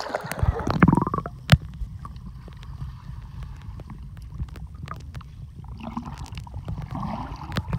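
Lake water heard through a submerged camera: a splash about a second in, then a muffled underwater rumble and gurgling with scattered clicks, including one sharp click soon after the splash.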